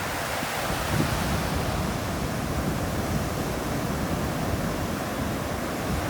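Steady, even rushing of water in an outdoor recording, with no breaks or swells.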